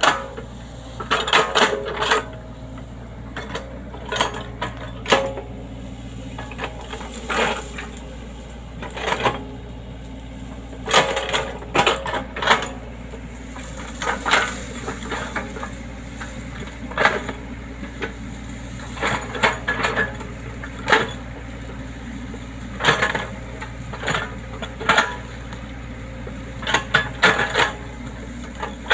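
Excavator engine running with a steady low hum, under irregular metallic clanks and rattles every second or two as the machine works.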